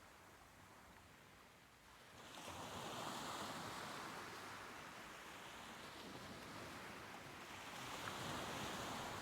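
Soft ocean waves washing ashore: a quiet lull, then a wave swells in about two seconds in, and another surges near the end.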